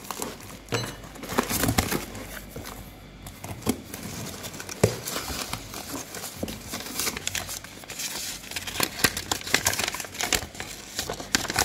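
Cardboard parcel being opened by hand: flaps pulled back and plastic bubble wrap and packing paper crinkling and rustling in irregular bursts, with some tearing.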